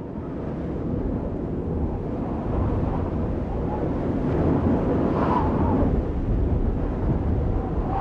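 Steady low rumbling noise like wind, slowly swelling. Faint wavering tones come through near the middle and again near the end.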